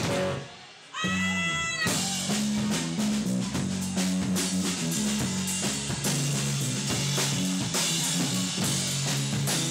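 Live rock band with drum kit and electric guitar playing. Just after the start the band drops out for a moment, a single bending, wavering note sounds about a second in, and the full band with drums crashes back in about two seconds in.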